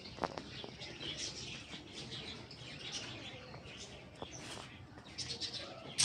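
Many small birds chirping at once, a steady stream of short, high, overlapping chirps, with one sharp click about a quarter second in.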